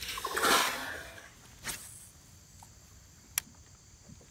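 A released largemouth bass splashing into the lake beside the boat, loudest about half a second in, followed by a smaller splash. A single sharp click comes about three seconds in.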